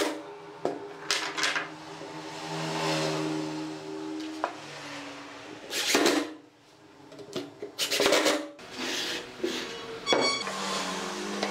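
Cordless drill-driver driving wood screws into pine, its motor whine held steady for a few seconds, then stopping and starting in short runs. Sharp knocks and clinks of wood and metal come in between.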